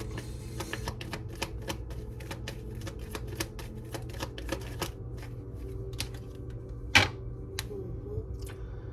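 Tarot cards being shuffled by hand: a quick run of papery clicks, several a second, for about five seconds, then a few scattered snaps as cards are drawn, the sharpest about seven seconds in. Soft background music plays underneath.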